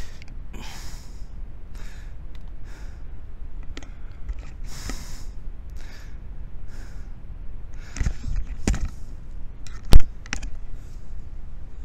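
A man breathing hard in short hissing breaths and sighs while handling clothing, with a few small clicks. A single loud, sharp thump about ten seconds in.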